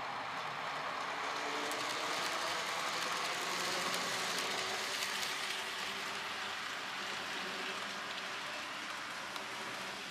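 N gauge model train running on the layout: a steady rumble of wheels on the rails and motor hum that swells to its loudest a few seconds in, then slowly fades.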